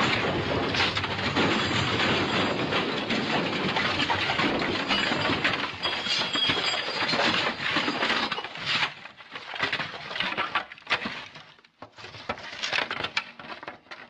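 A long smash sound effect: a dense, continuous crash of breaking and splintering, which about eight seconds in thins out into scattered separate impacts and falling debris before cutting off.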